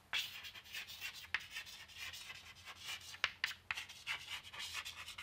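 Chalk writing on a chalkboard: faint, uneven scratching and rubbing strokes as letters are formed, with a few sharp taps of the chalk.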